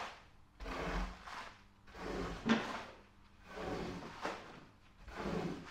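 Long-handled bristle scrub brush worked back and forth over a wet, shampoo-foamed hand-knotted Persian rug, swishing and scraping through the pile in slow, regular strokes. There are four strokes, about one every second and a half.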